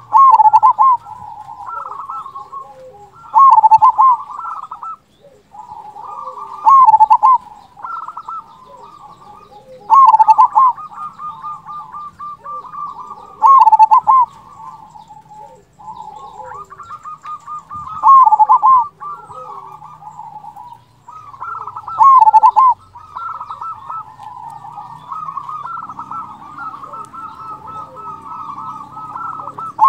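Zebra dove (perkutut) cooing: runs of rapid trilling notes, with a loud 'kung' phrase about seven times, roughly every three to four seconds.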